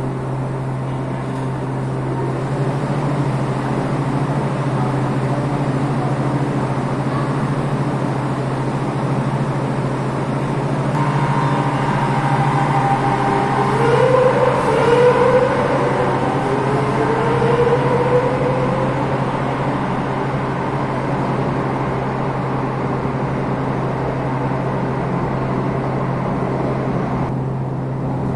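A Madrid Metro train pulling out of the station over a steady low hum. About halfway in, its traction motors whine with a pitch that climbs in steps as the train accelerates away, then the sound fades.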